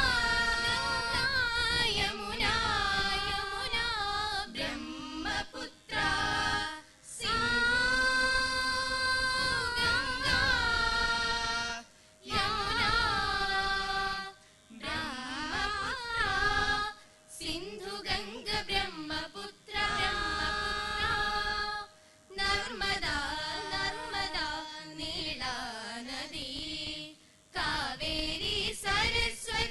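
A group of teenage students, mostly girls, singing a patriotic song (deshabhakthi ganam) together, in long sung phrases broken by short pauses every few seconds.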